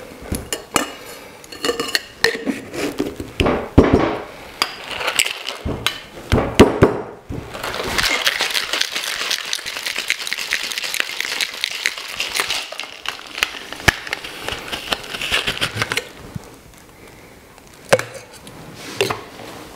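Ice rattling inside a stainless steel tin-on-tin cocktail shaker in the wet shake with ice that follows a dry shake of egg white. First come scattered clinks of ice and metal as the tins are joined, then about eight seconds of hard, continuous shaking, then one sharp knock near the end.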